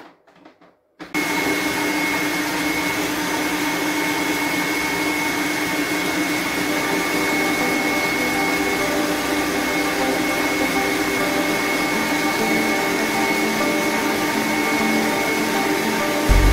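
Electric stand mixer switched on about a second in and running steadily with a motor whine and hum, beating butter and sugar into a creamy cake mixture. A louder low rumble joins at the very end.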